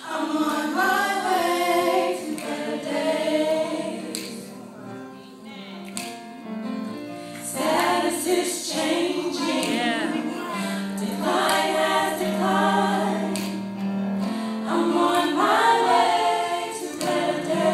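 Youth gospel choir singing together into microphones, several voices at once over steady low held notes, dropping to a quieter passage about five seconds in and then swelling fuller.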